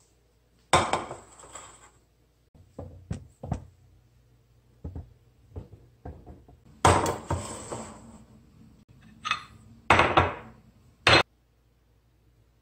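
Dishes being handled and set down on a kitchen counter: a series of knocks and clinks, the loudest about a second in, around seven seconds in and twice near the end.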